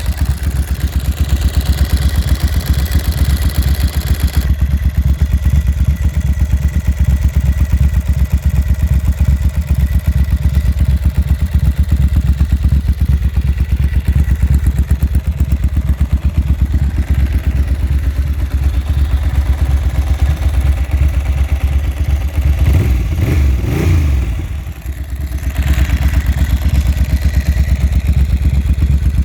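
1996 Ducati Monster M900's air-cooled 90° V-twin running through Termignoni exhausts, idling with an even, lumpy low beat. About three-quarters of the way in it is revved with quick throttle blips, then drops back to idle.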